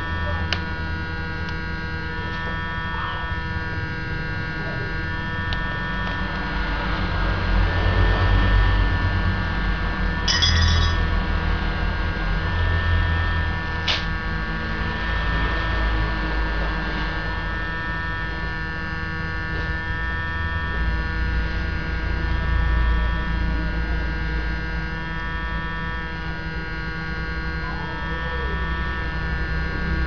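Steady electrical mains hum, a low rumble with a set of steady tones above it. A few faint clicks are heard, one near the start and one about halfway through.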